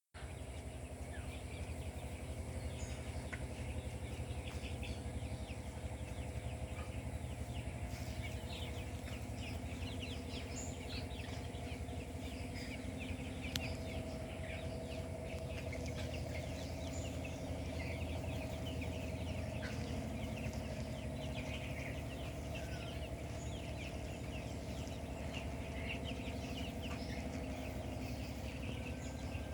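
A flock of 20-day-old Kroiler chicks peeping continuously, many short high chirps overlapping, over a steady low hum.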